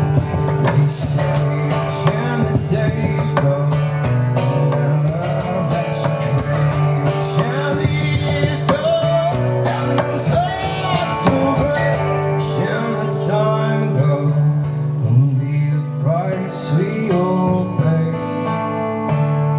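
Guitar playing bluesy music, with picked notes and bending, gliding pitches over a steady low drone.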